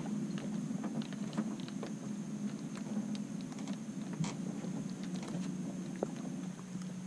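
A steady low hum with a faint high whine over it, and scattered light ticks and taps, one sharper about four seconds in.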